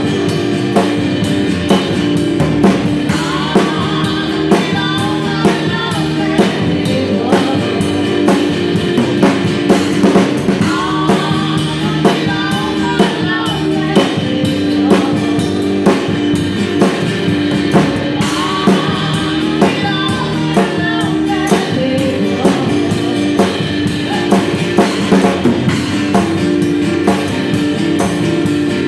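Live band playing a song: a woman singing over a drum kit played with sticks, with acoustic and electric guitar and upright bass. The drums are close and loud, with regular stick hits on drums and cymbals.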